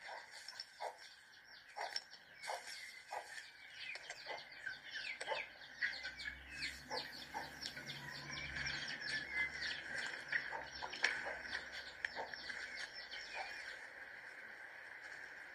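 Many small birds chirping, short overlapping calls in quick succession.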